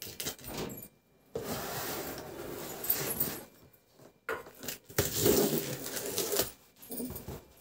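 Packing tape on a cardboard box being slit with a box cutter and torn, and the box flaps pulled open. Two scratchy rasps of about two seconds each, the first starting about a second in and the second past the middle, with short clicks and rustles before and between them.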